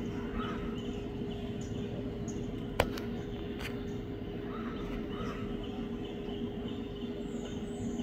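Small birds chirping faintly and intermittently over a steady low hum, with one sharp click a little under three seconds in.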